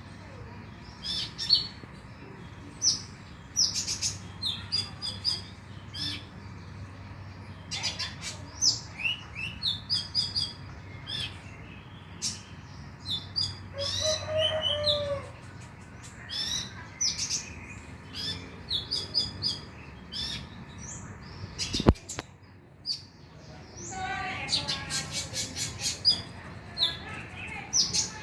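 Kolibri ninja sunbird song: rapid series of short, high chirps and twittering trills, a lure recording meant to trigger other kolibri ninja into song. A single sharp click about 22 seconds in.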